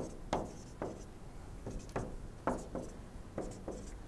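Marker pen drawing on a whiteboard: a quick series of short strokes, about two a second, as resistor symbols and labels are sketched.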